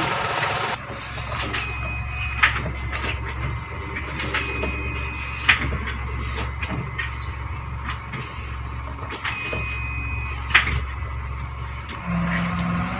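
Chery QQ with an automated manual gearbox, a steady low hum underneath while the gear selector is worked: three times a short, steady high whine sounds for under a second and ends in a sharp click, with a few lighter clicks between.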